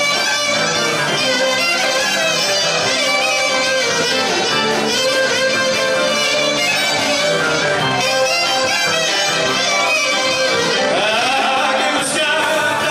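Greek dance music played loudly and steadily on instruments, with a singing voice coming in near the end.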